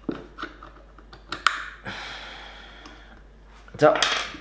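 Screwdriver tip clicking and tapping against the metal head-actuator arm inside an opened hard disk drive: a run of light, sharp clicks, then a short soft scrape.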